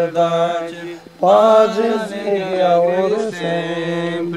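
Buddhist mantra chanting: long notes held on a steady low pitch, with a short break for breath about a second in.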